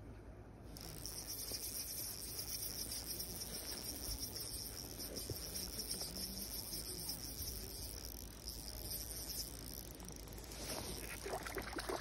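Spinning reel giving a high, fast, flickering chirr as a hooked trout is played on light tackle. Near the end come irregular splashes as the trout thrashes at the surface and is scooped into the landing net.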